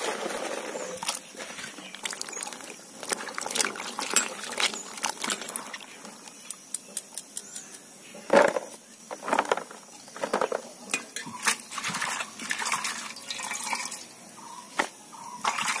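Cut vegetables being washed by hand in a steel pot of water: irregular splashes and drips as handfuls are dropped into the water and lifted out.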